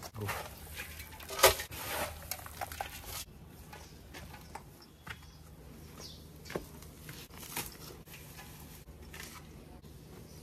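Scattered rustling, scuffing and small clicks of green fodder being carried and dropped for buffaloes, with one sharp knock about a second and a half in.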